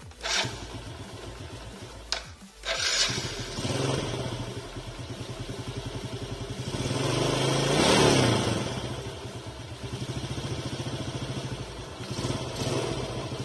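Yamaha Vega ZR's four-stroke single-cylinder engine being started. It catches about three seconds in and settles into an idle. It is revved up and back down once in the middle and briefly again near the end. The engine's loose valves have just been adjusted to cure a light ticking noise.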